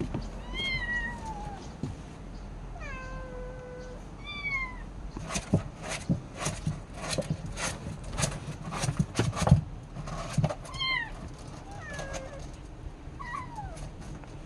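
Kitten with its neck stuck in a hole, meowing in distress: about six short, high cries that fall in pitch. A run of rapid clicks and knocks comes between them, from about five to ten seconds in.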